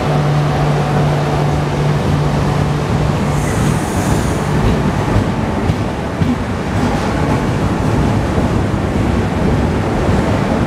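Passenger train coaches rolling alongside a station platform, a steady loud rumble of wheels on rails. A low steady hum runs under it for the first three seconds, and there is a brief high squeal about four seconds in.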